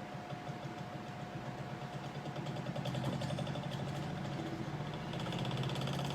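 Homemade DeWalt-powered lapidary grinder running with its wheel spinning, a fast rattling vibration building louder about halfway through: the machine is shaking, which the builder suspects comes from the weight not being distributed evenly or the machine sitting unlevel.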